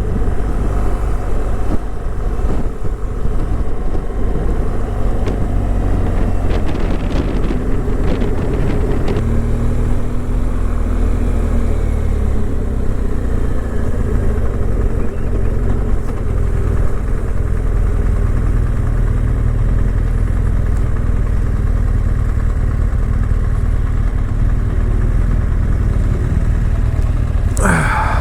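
Car engine and road noise heard from inside the cabin while driving: a steady low rumble that holds at an even level. A brief voice-like sound comes right at the end.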